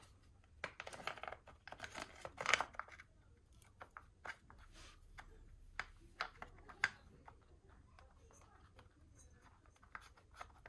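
Clicks, taps and rustling of engine parts being handled and fitted by hand, busiest in the first three seconds. A few sharp clicks follow around the middle, then only faint ticks.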